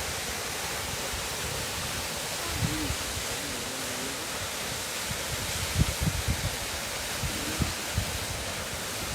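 Waterfall rushing steadily, an even wash of falling water. A faint voice is heard briefly about three seconds in, and a few low bumps come through around the middle.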